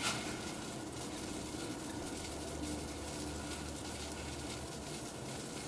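Water at a rolling boil bubbling steadily in a stainless steel saucepan, with grated coconut just dropped in; a brief splash at the start.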